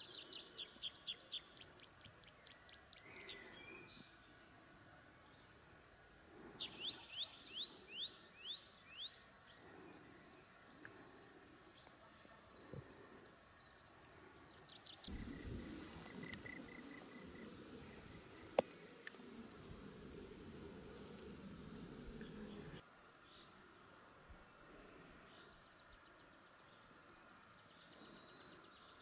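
Crickets chirring steadily in a high, unbroken band, with a songbird singing runs of quick falling notes twice, at the start and again about seven seconds in. Midway a low rumble comes in for several seconds, and there is a single sharp click.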